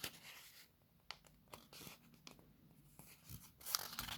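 Faint rustling and crinkling of a folded paper instruction leaflet being handled and unfolded, with a few small clicks; the rustling grows louder near the end.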